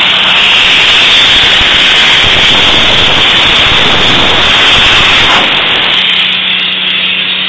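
Vapour-blasting gun spraying a low-pressure water-and-abrasive slurry: a loud, steady hiss, easing off slightly about six seconds in, with a faint steady low hum beneath it near the start and end.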